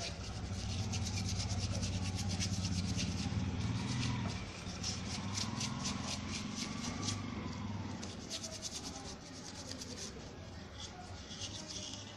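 Quick repeated scraping strokes, densest in the middle, over a steady low hum that fades out near the end.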